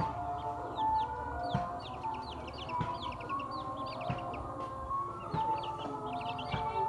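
Baby chicks peeping, a rapid stream of short high cheeps that each fall in pitch.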